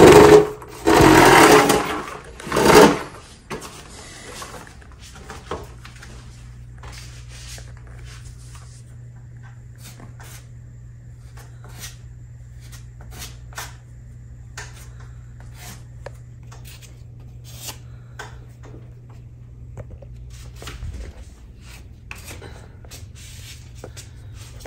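Putty knife scraping and tapping spackle over filled holes in a wall: short, scattered scrapes over a low steady hum, after a few loud sounds in the first three seconds.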